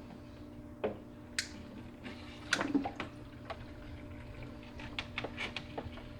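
Small electric aquarium gravel vacuum (AQQA 20 W) running with a steady hum while drawing water through its tube, with water sloshing and scattered sharp clicks and knocks.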